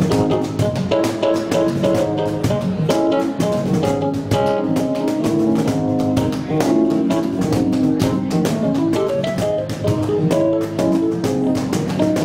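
Instrumental background music led by plucked guitar, with a steady beat of quick, sharp strokes.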